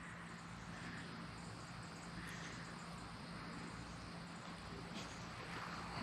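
Faint, steady outdoor background: a low hum and the faint chirring of insects such as crickets, with no distinct handling noises.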